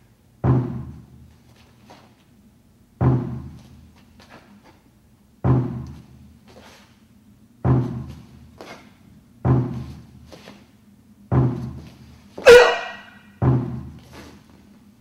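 A large drum struck seven times, about every two seconds, each beat a deep boom that dies away, counting the moves of a Tang Soo Do hyung. About twelve and a half seconds in comes the loudest sound, a short sharp shout: the performer's kihap.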